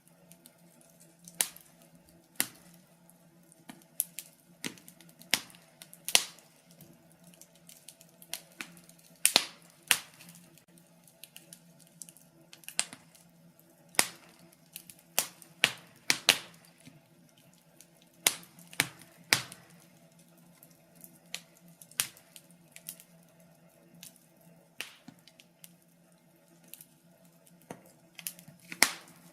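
Wood fire crackling in a fireplace: irregular sharp pops and snaps, sometimes in quick clusters, over a faint steady hum.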